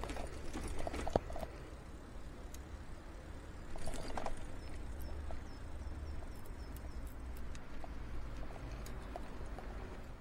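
Bicycle rattling over cobblestones: irregular clatter and knocks from the bike's frame and fittings over a steady low rumble of the tyres, with the loudest jolts about one second and four seconds in.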